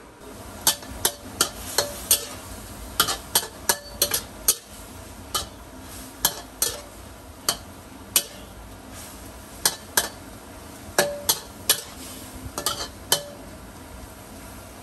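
Stir-frying in a wok: a metal utensil clanks and scrapes against the pan in quick, irregular strikes, some ringing briefly, over steady sizzling.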